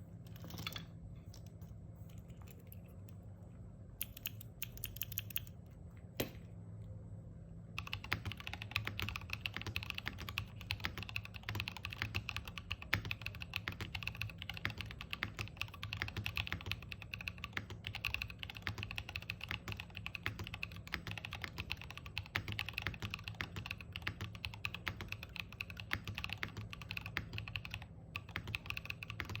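Neo G67 mechanical keyboard with Everglide Dark Jade tactile switches on a polypropylene plate being typed on: a few scattered keystrokes at first, then fast continuous typing from about eight seconds in.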